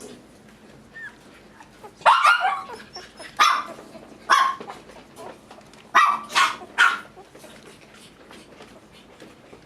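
Toy poodle puppy barking: about six short, high-pitched barks. There is a cluster about two seconds in, then single barks roughly a second apart, then three quick barks a little past the middle.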